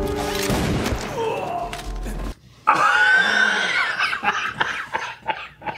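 Action-film soundtrack with music and sharp hits, which cuts off abruptly a little over two seconds in. A man then breaks into loud, high laughter that goes on in short bursts.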